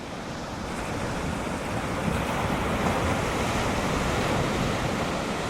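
Ocean surf breaking and washing ashore, with some wind on the microphone; the wash grows louder about a second in and stays up.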